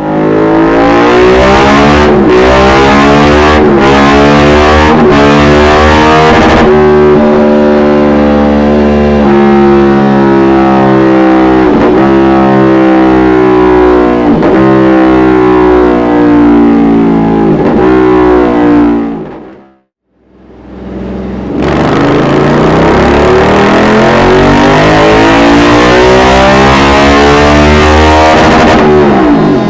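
Suzuki V-Strom 1050's V-twin engine, breathing through a Dominator aftermarket silencer, run hard on a dyno. There are brief breaks in the first few seconds, then a long pull climbing in pitch that cuts off about two-thirds of the way through. A second full-throttle run climbs again near the end.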